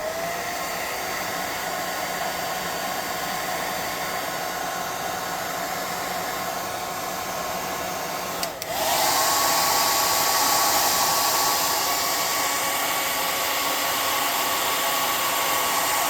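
Hot air gun running steadily, blowing hot air to dry freshly applied paint on a miniature, with a constant whine over the rush of air. About eight and a half seconds in it briefly drops out and comes back louder, its whine higher.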